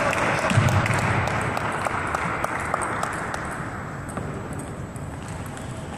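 Spectators applauding, the clapping fading away over the first few seconds, with scattered sharp clicks of table tennis balls struck and bouncing on the tables.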